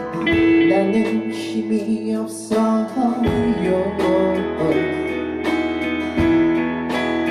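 A band playing a song with guitars ringing out in a strummed and plucked passage between sung lines.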